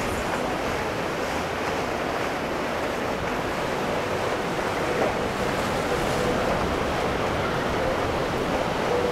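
Steady rushing noise of wind on the microphone and moving water, with a faint hum coming and going.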